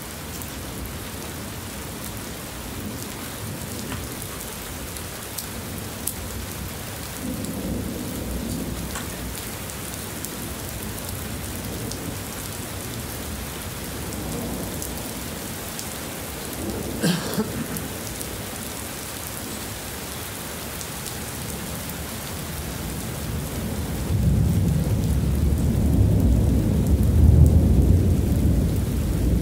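Heavy rain pouring steadily, with thunder rolling through it: a brief low rumble about a quarter of the way in, a short sharp crack a little past halfway, and a long, loud, deep rumble near the end.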